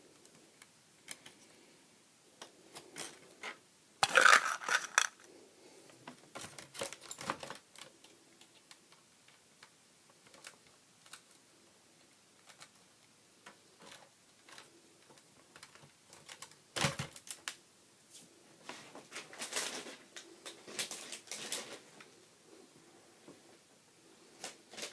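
Small screws being taken out of a laptop screen's side brackets: scattered light clicks and ticks of screwdriver, screws and plastic, with louder clattering bursts about four seconds in and again around seventeen and twenty seconds.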